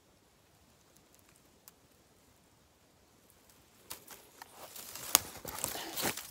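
Faint quiet at first. About four seconds in, close rustling of dry grass and clothing starts, with sharp clicks and knocks as the camera is handled. The loudest click comes about five seconds in.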